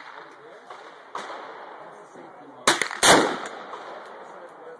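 AR-15 rifle in .223 firing at an outdoor range: two sharp shots in quick succession a little past the middle, the second the loudest, each trailing off in an echo, with a fainter report about a second in.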